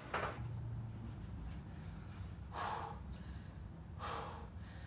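A man's breathing: two short, forceful breaths, one about halfway through and one near the end, as he braces under a loaded barbell for a bench press.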